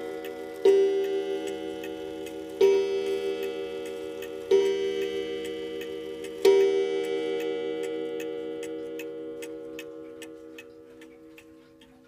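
Junghans pendulum mantel clock striking twelve: four ringing strokes about two seconds apart, each fading slowly, the last dying away near the end. The escapement ticks steadily underneath.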